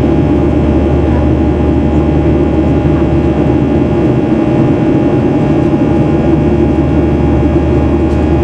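Steady engine and airflow noise inside the cabin of a Boeing 737-800 in flight, heard from a window seat beside the wing and its CFM56-7B turbofan. A low hum sits beneath the noise.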